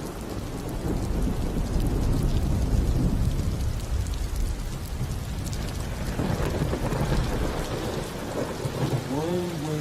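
Steady rain with rolling thunder rumbling, heaviest in the first few seconds. A singing voice comes in near the end.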